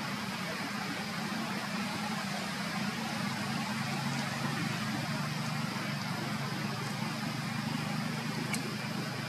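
A steady low engine hum over a constant hiss.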